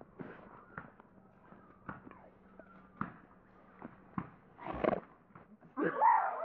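Slowed-down phone-video audio: scattered knocks and handling noise, a muffled thump near the middle, then near the end a loud, drawn-out voice that slides in pitch.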